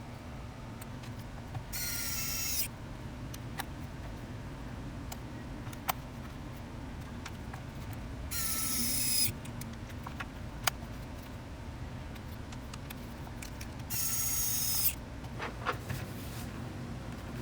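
A small electric screwdriver whining in three short runs of about a second each, driving screws, with light clicks of parts being handled in between.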